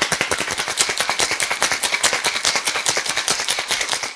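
Ice rattling hard inside a metal three-piece cocktail shaker being shaken vigorously, a rapid run of sharp knocks, to chill an espresso martini until the shaker frosts over. The shaking stops abruptly near the end.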